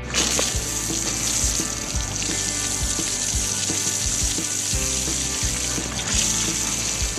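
Steady hiss of water spraying from a hose, with background music beneath.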